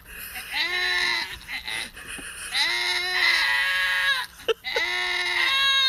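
Goats bleating: three long, loud calls, each lasting about a second or more, with short gaps between.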